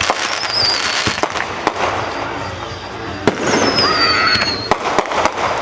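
Aerial fireworks going off: a run of sharp bangs and crackling, the loudest bang a little past halfway, with two long high whistles falling in pitch.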